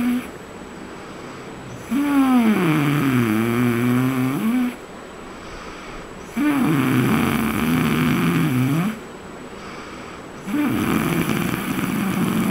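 A man snoring loudly in his sleep: three long, pitched snores of about two and a half seconds each, the pitch dipping and then rising within each, with short quieter breaths in between.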